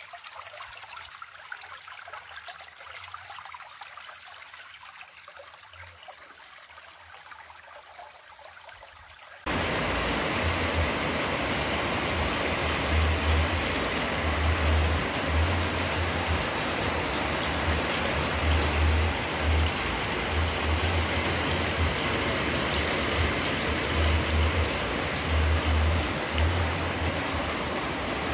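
A shallow stream trickling over rocks. About nine seconds in, an abrupt cut to a much louder, steady rush of water noise with irregular low gusts of wind buffeting the microphone.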